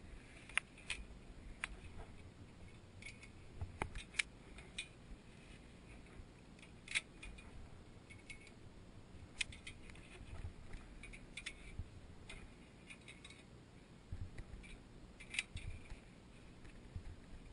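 Via ferrata gear clinking: carabiners and lanyards knocking against a steel cable and iron ladder rungs as a climber moves along, about a dozen irregular metallic clicks.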